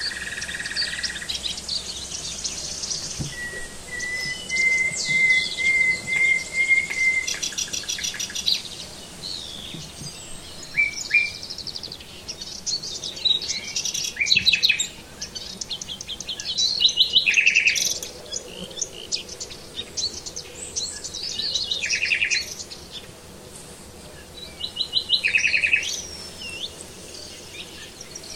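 Songbirds singing in short varied phrases of high chirps, sweeps and rapid trills. A few seconds in, one bird gives a long run of quick repeated notes.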